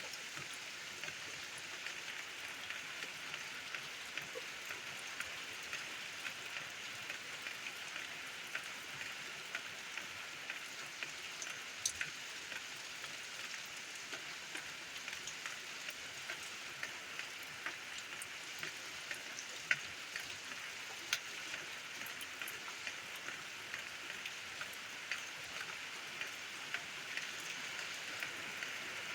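Steady rain falling, a constant hiss with scattered sharper ticks of individual drops striking a hard surface.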